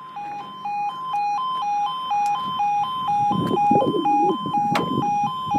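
UK level crossing's two-tone warning alarm, steadily alternating between a higher and a lower pitch a few times a second, sounding as the barriers come down for an approaching train. A low rumble comes in midway.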